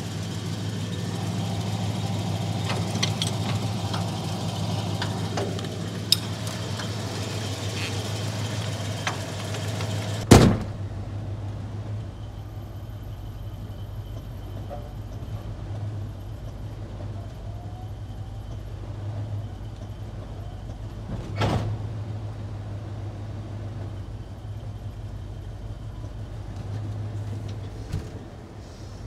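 Ford pickup truck engine idling steadily with a snowplow hooked up to it. A loud sharp clunk about ten seconds in and a lighter knock about twenty-one seconds in.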